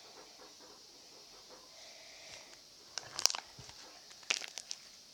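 Foamy slime being pulled open and worked by hand, giving two bursts of sticky crackling pops, about three seconds in and again about a second later.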